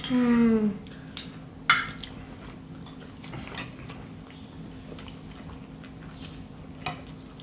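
Spoon and fork clinking against china plates during a meal, with a sharp clink about a second and a half in and a few lighter taps after. It opens with a brief falling murmur from one of the diners.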